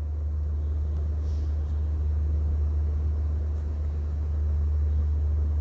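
Steady low hum with no change in pitch or level: constant background noise of the recording, with nothing else clearly heard.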